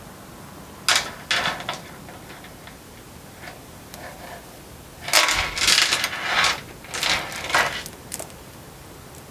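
A mini bike roller chain being handled out of its packaging, rattling and crinkling in short bursts about a second in and again between five and eight seconds in.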